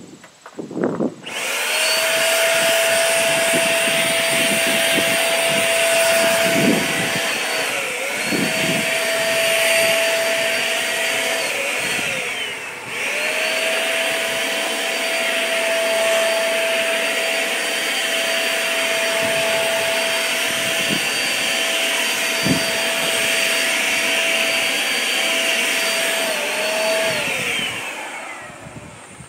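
HomeRight Command Max HVLP paint sprayer's turbine motor running with a steady whine and rush of air, starting about a second in. Its pitch dips briefly a few times, most deeply about 12 seconds in, and winds down with falling pitch near the end.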